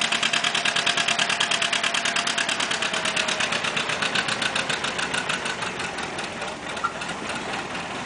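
Classic John Deere tractor engine working under load as it pulls a weight-transfer sled. Its exhaust gives a rapid, even beat that grows fainter in the second half.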